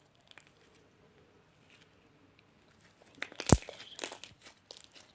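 Clear-base slime being squeezed in the hands, giving a few short sharp clicks and crunches, the loudest about three and a half seconds in.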